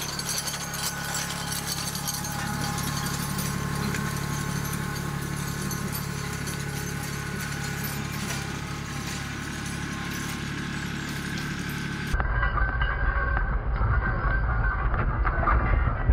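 Kubota B2261 compact tractor's three-cylinder diesel engine running steadily while it pulls a chain harrow over grass. About twelve seconds in, the sound cuts to a louder close-up of the engine with the harrow's chains and frame clattering as they drag over the ground.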